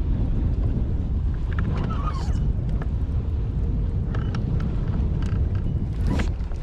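Wind buffeting the microphone in a steady low rumble, with a few faint light clicks scattered through it.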